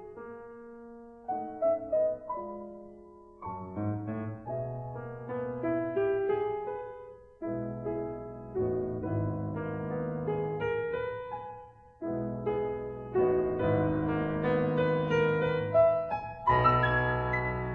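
Piano music: struck notes and chords that ring and fade, a melody over lower held chords.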